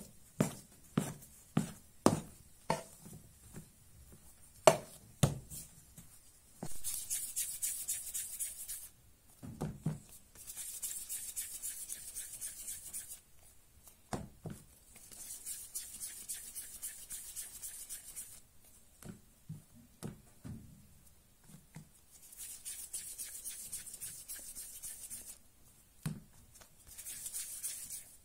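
Metal dough scraper knocking down onto a wooden board as dough is cut into pieces, about two strokes a second for the first five seconds. Then hands rolling small dough pieces into balls, a soft rubbing in spells of a few seconds each.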